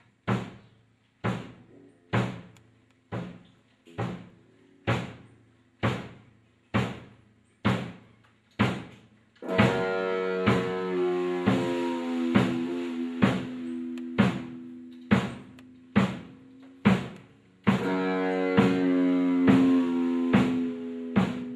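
Instrumental music: a drum kit keeps a steady beat of about one hit a second. About nine seconds in, a sustained pitched instrument comes in with long held notes that step downward, and it enters again about eight seconds later.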